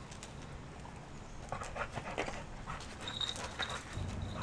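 Pit bull panting in short breaths near the microphone. About three seconds in, a small bell on the toy dog starts ringing with a thin, high, steady jingle.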